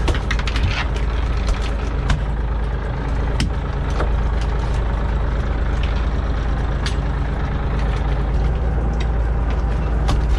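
Small fishing boat's engine and deck machinery running steadily with a low drone, while the longline is hauled. Scattered sharp clicks and knocks sound over it, the loudest about two seconds in.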